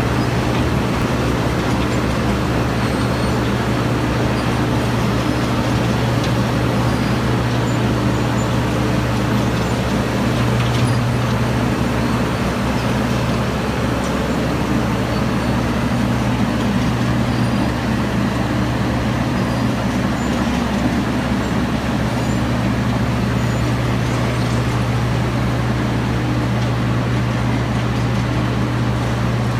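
Asphalt milling machine running steadily: a heavy diesel engine drone with a constant low hum and a rough rumble over it, unchanging throughout.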